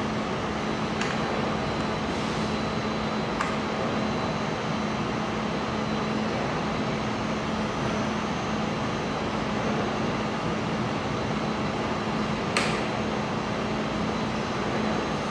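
Steady fan-like hum of a mold laser welding machine running, with a few sharp clicks: one about a second in, another a few seconds later, and a louder one near the end.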